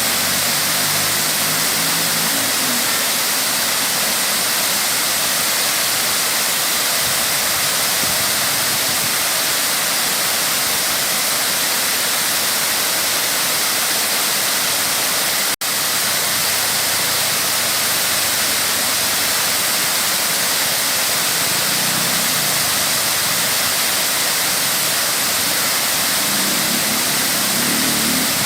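Waterfall rushing, a steady loud wash of falling water, briefly cut off about halfway through.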